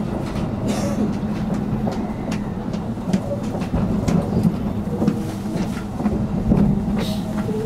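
Electric commuter train running, heard from on board: a steady low rumble with irregular sharp clicks from the wheels over rail joints.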